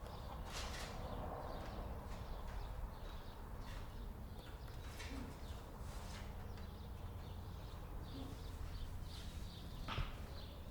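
Barn ambience: a steady low rumble with scattered knocks and clicks, the sharpest knock just before the end.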